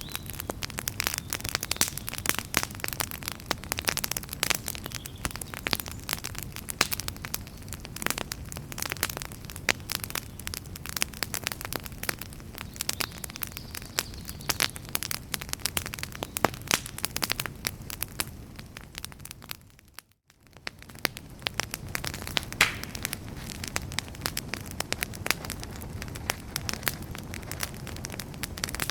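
Wood fire in a fireplace crackling and popping, with dense, irregular snaps over a low rumble of flames. About two-thirds of the way through it fades briefly almost to silence, then comes back.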